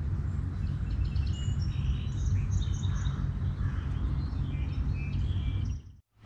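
Several birds chirping and trilling over a steady low rumble of outdoor noise. Everything cuts out abruptly just before the end.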